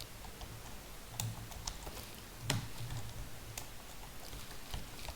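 A few scattered keystrokes and clicks on a computer keyboard, spaced unevenly over a quiet room hum, as values are typed into a form.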